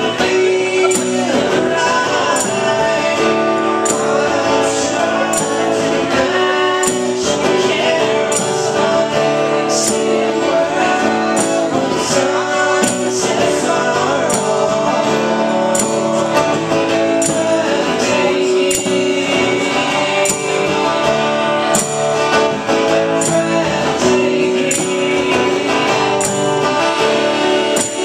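Two acoustic guitars strummed through a song played live, with crisp high ticks keeping time over the chords.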